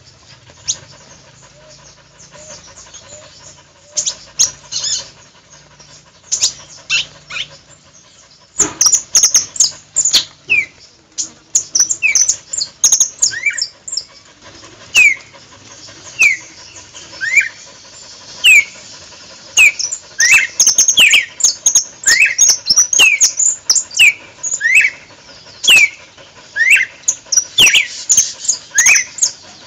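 Several caged songbirds kept as decoy callers singing and chirping together: sharp high chips mixed with short falling whistles repeated about once a second. Sparse at first, the singing turns dense and lively about nine seconds in.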